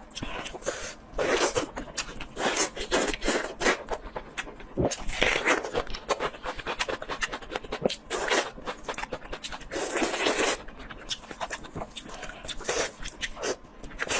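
Close-miked eating: rapid wet mouth clicks and smacks of chewing, broken by a few longer breathy sounds.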